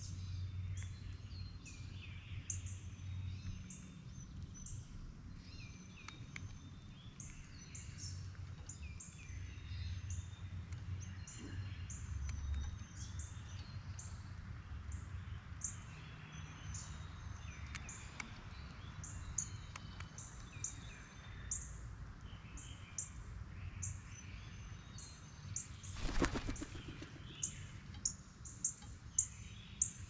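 Small birds chirping over and over in the background over a steady low hum. About 26 seconds in comes a brief loud flutter of wingbeats as the pileated woodpecker takes off from the suet feeder, followed by a few sharp clicks near the end.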